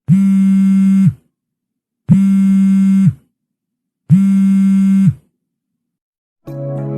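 Three identical electronic buzzer tones, each about a second long with a low, buzzing pitch, starting two seconds apart with silence between them. Music starts near the end.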